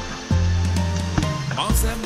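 Background music with a strong bass line and a steady beat.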